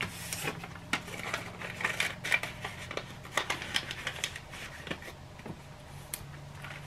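Paper bills and the plastic envelope pages of a cash budgeting binder rustling, with irregular light clicks and taps as a bill is slipped in and the pages are turned. A faint steady low hum runs underneath.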